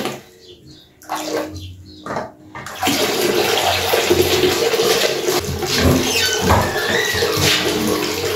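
Water running into a container for washing: a couple of short splashes in the first seconds, then a steady stream from about three seconds in.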